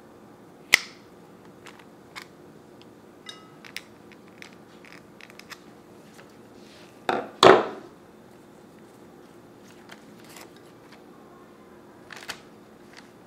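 Scissors snipping baby's breath stems: a sharp snip about a second in, a louder, longer cut in two parts around seven seconds in, and light clicks and rustles of stems in between.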